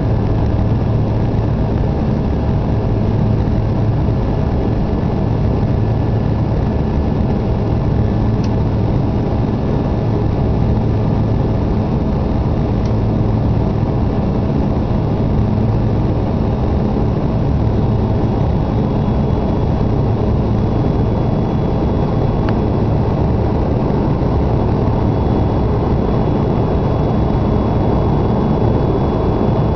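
Steady cabin drone of a Canadair CRJ regional jet in flight, heard from inside the cabin: the rear-mounted turbofan engines and the rush of air over the fuselage, with an even low hum underneath. Two faint ticks come through, about a third of the way in and again past the two-thirds mark.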